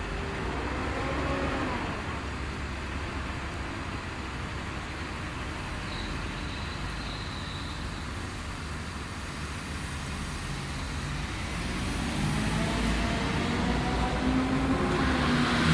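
Low, steady rumble of city bus engines in slow traffic. From about three-quarters of the way in, a bus engine grows louder as the bus draws close and passes.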